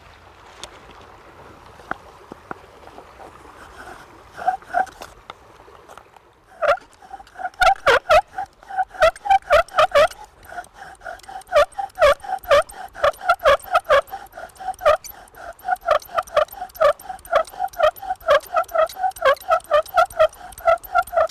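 Wooden bow-drill spindle squeaking in its hole in the hearth board, a short squeal on each stroke of the bow at about three a second, starting about four seconds in. The squeal is the tip glazing over from moisture still in the wood.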